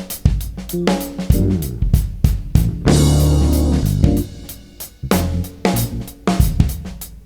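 Live jazz-fusion band playing, with drum kit, bass and guitar. About three seconds in the band hits a loud held chord that fades away, and the drums come back in about five seconds in.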